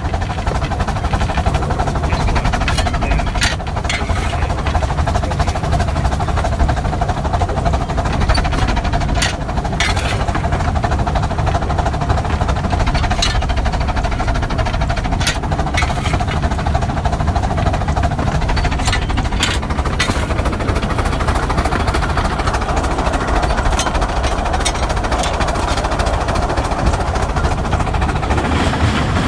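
Steady running noise in the cab of Northern Chief, a 15-inch-gauge steam Pacific, travelling at speed, with a few sharp clanks scattered through.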